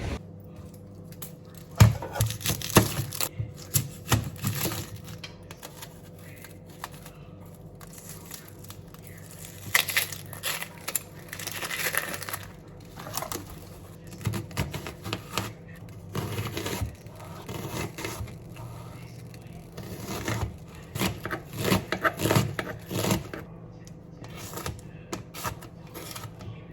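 Intermittent handling noises: scattered taps and knocks with scraping and crinkling, like objects and packaging being handled.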